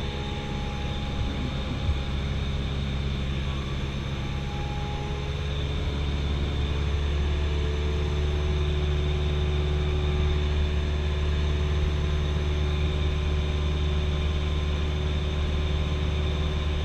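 Cessna 172SP Skyhawk's four-cylinder Lycoming engine and propeller drone steadily in flight, heard inside the cabin. The drone grows somewhat louder about six seconds in.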